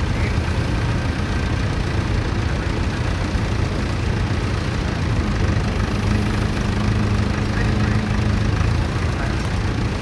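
Tractor engine running steadily under load as it pulls a plough through the field, with a steady engine note standing out from about halfway to near the end.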